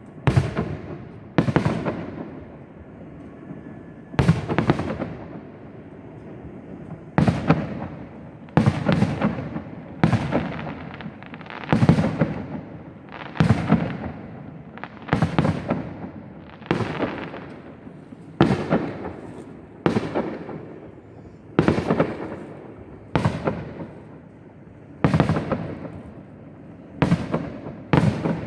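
Fireworks display: shells bursting one after another, about one bang every one and a half to two seconds, some in quick pairs, each trailing off in a rumbling echo.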